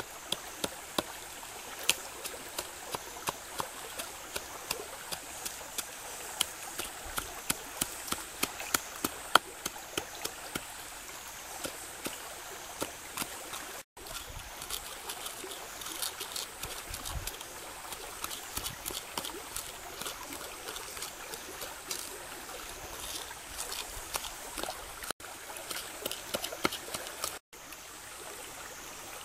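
Stone pestle pounding chilies and garlic in a coconut-shell bowl, sharp taps about twice a second that turn softer and quicker about halfway through, over the steady rush of a shallow stream.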